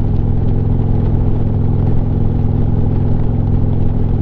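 Harley-Davidson Street Glide's V-twin engine running at a steady pitch while the motorcycle cruises.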